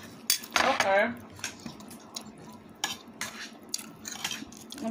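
Metal spoon scraping and clinking against a ceramic plate while scooping rice: a string of short scrapes and taps, with one brief pitched squeal about half a second in.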